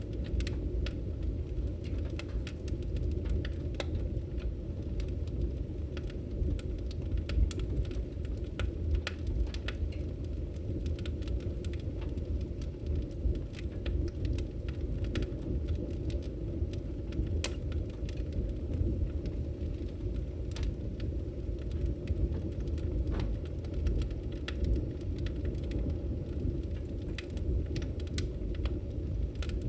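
Wood fire burning in a fireplace: a steady low rumble of the flames with irregular sharp crackles and pops throughout.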